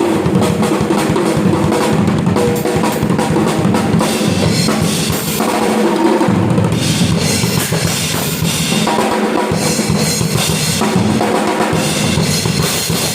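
Yamaha acoustic drum kit played hard and fast: dense bass drum and snare strokes with fills, and Zildjian cymbals washing in more strongly from about halfway through.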